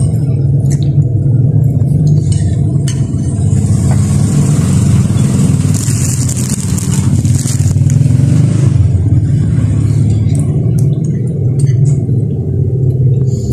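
Thin plastic bag crinkling for several seconds as a hand rummages in it for bread, over a loud, steady low rumble.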